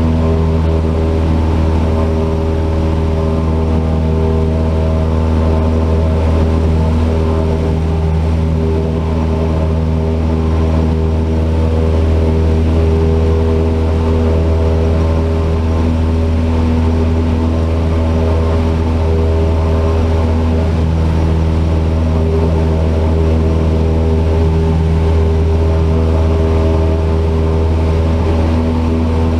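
Cessna 172's four-cylinder piston engine and propeller running with a loud, steady drone at constant power.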